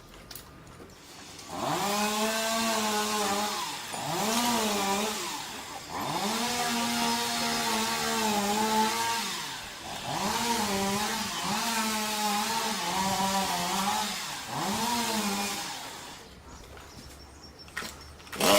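Two-stroke chainsaw revved hard in about six bursts of one to three seconds each, the engine pitch climbing at the start of each burst and sagging between them.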